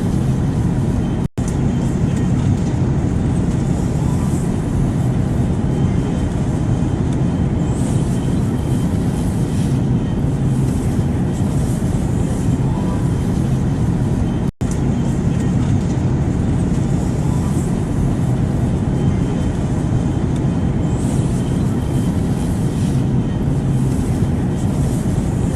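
Steady airplane noise used as white noise: an even, deep rumble with a hiss above it, no change in pitch or level. It drops out to silence for an instant twice, just over a second in and again just past halfway.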